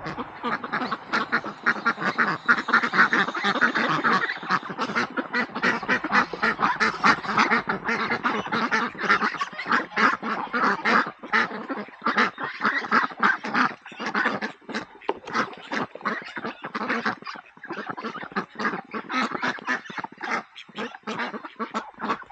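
A flock of domestic ducks and geese calling: a dense, continuous chatter of many overlapping quacks and honks that thins out somewhat in the second half.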